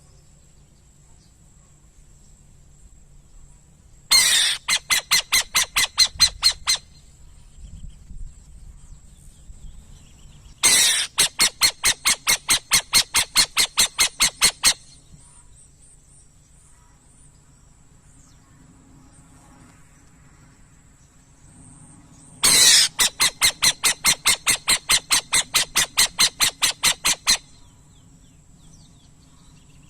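Burrowing owl giving harsh, rasping notes repeated rapidly at about four a second, in three bouts of a few seconds each.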